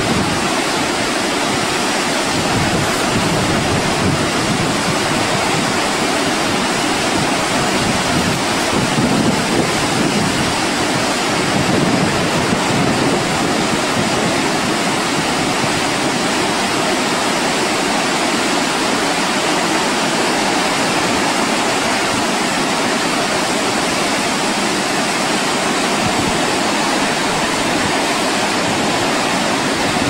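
Steady, loud rushing noise of water, unbroken throughout.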